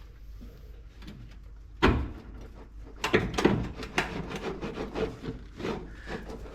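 Metal clanks and knocks as the upper control arm of a 1969 Plymouth Fury III is worked loose from the front suspension. One sharp knock about two seconds in is followed by an irregular run of clanks.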